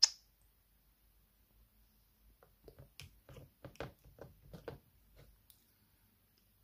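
A sharp click as a hand touches the recording device, followed a couple of seconds later by a quick, uneven run of about a dozen soft taps and pats lasting about three seconds.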